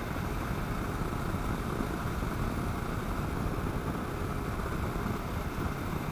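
2009 Kawasaki KLR650 single-cylinder motorcycle riding at steady road speed: an even rush of engine, tyre and wind noise, heaviest at the low end.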